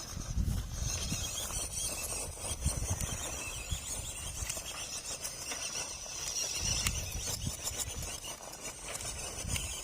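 MN-99 1:12 scale 4WD RC car's electric motor and gears whining high-pitched as it drives over rough ground, with irregular low thumps from the wheels and chassis.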